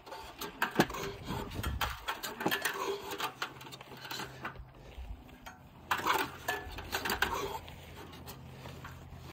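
A roll of barbed wire on a wooden spool stand with a metal pipe axle, rattling and clicking with irregular metallic knocks and clatter as the wire is worked. A low steady hum comes in about three seconds in.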